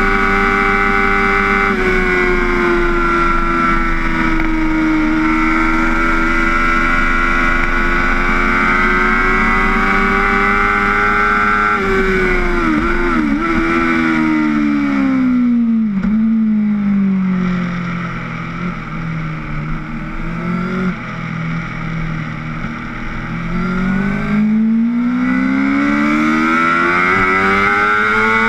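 Race motorcycle engine running hard at high revs. About twelve seconds in the revs fall away as the bike slows, then stay low and quieter for several seconds before climbing steadily again under acceleration near the end.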